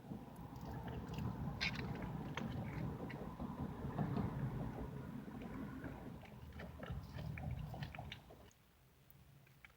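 Close-miked eating: a person chewing pie, with wet clicking mouth sounds over a low rumble that drops away about eight seconds in.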